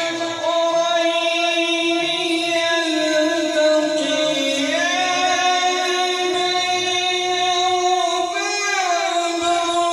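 A man reciting the Quran in the melodic, drawn-out tilawat style. He holds long, steady notes, with a step up in pitch about halfway through and a wavering glide near the end.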